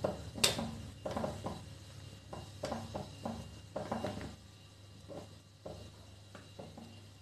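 Wooden spatula stirring soya chunks in boiling water in a stainless steel pot, knocking and scraping against the pot, with a sharp knock about half a second in. The strokes thin out to a few faint taps after about four seconds.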